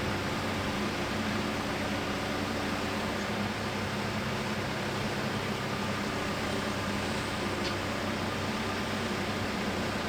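Backhoe's diesel engine running steadily, an even mechanical hum.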